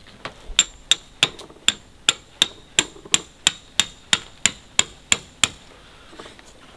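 A hammer driving a tent peg into the ground: about fifteen steady blows, roughly three a second, each with a bright metallic ring, stopping about two-thirds of the way through.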